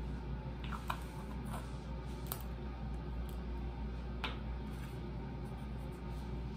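Light clicks and rustles of small items being handled at a bathroom counter, a few scattered strokes with the sharpest about a second in and just past four seconds, over a steady low room hum.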